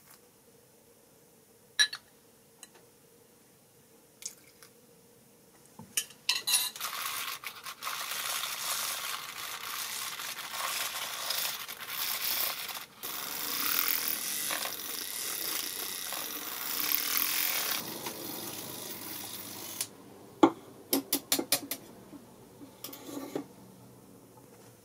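A utensil is worked rapidly against a bowl for about fourteen seconds, making a steady fast scraping like whisking or hard stirring. Sharp clinks of dishes and utensils come before it and after it.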